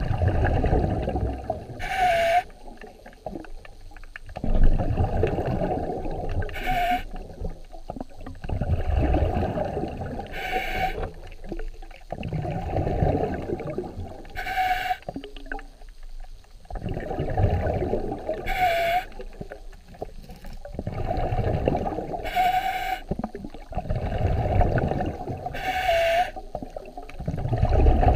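A swimmer's breathing heard underwater through the camera: a short, sharp breath about every four seconds, with a long, low rushing swell of water and bubbles between breaths.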